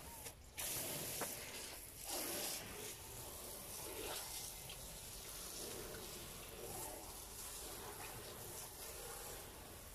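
Faint water sounds from a small tank being cleaned, with a few light knocks.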